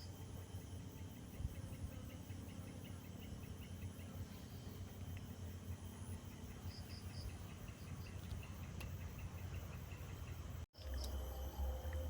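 Insects chirping steadily in a continuous high trill with fast repeated ticks, over a low rumble. A sudden cut near the end brings in a louder low rumble.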